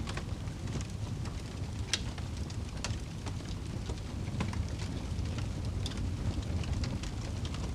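Wood fire burning in a fireplace: a steady low rumble of flames with irregular crackles and pops from the logs, one sharper pop about two seconds in.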